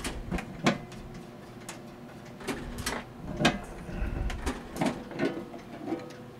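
Metal back cover of an electromechanical traffic signal controller being worked loose and slid out of its cabinet: a run of irregular knocks, clicks and scrapes of metal on metal.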